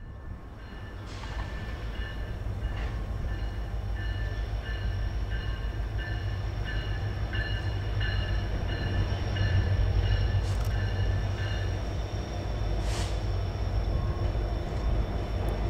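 Norfolk Southern SD70ACC diesel locomotive working hard on the climb out of the tunnel, a deep steady rumble that grows louder as it approaches. A faint high chirp repeats about every two-thirds of a second for most of it, and a few short high squeaks cut in.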